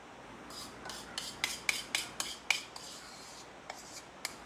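A quick run of short rasping scrapes during food preparation, about ten in two and a half seconds, then two fainter ones near the end.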